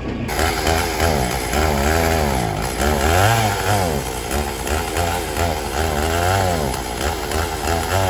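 Two-stroke chainsaw running off the log, revving up and down over and over.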